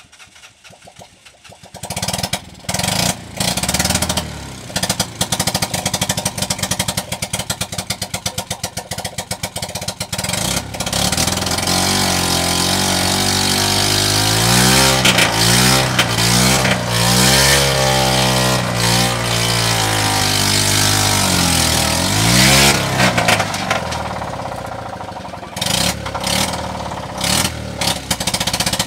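Engine of a homemade helicopter started up: it catches about two seconds in and runs, then revs up and down several times through the middle of the stretch before dropping back to a lower, steadier run near the end.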